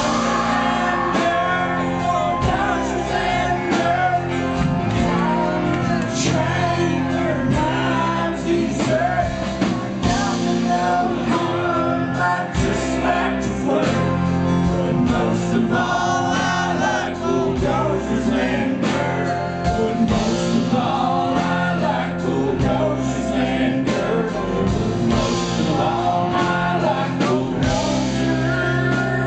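Live rock band playing a long stretch without sung words: electric guitars and drums.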